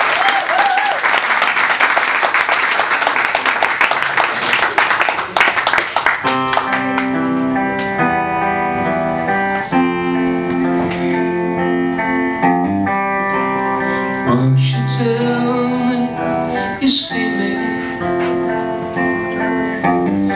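Solo hollow-body electric guitar played through an amp: a dense, noisy wash for about the first six seconds, then clean, ringing chords and single notes.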